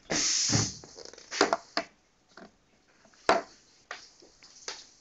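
A short hissing rustle, then a handful of separate sharp clicks and knocks as a long drill bit is fetched and handled.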